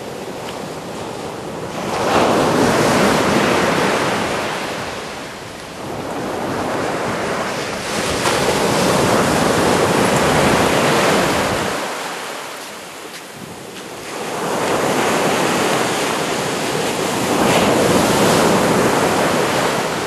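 Surf on a sandy beach: small waves breaking and washing up the sand, the roar swelling and falling away in about five surges.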